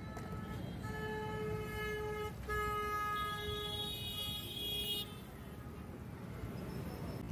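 Vehicle horns honking in street traffic: a long steady honk from about a second in, then a second overlapping honk until about five seconds in, over the low hum of passing traffic.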